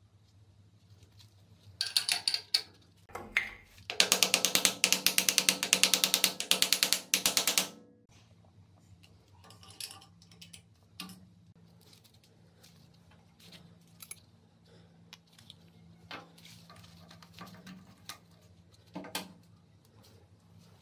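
Rapid, evenly spaced ratcheting clicks of a metal mechanism for about four seconds, after two shorter clicking bursts. Then scattered small clicks and taps of metal parts, one sharper near the end.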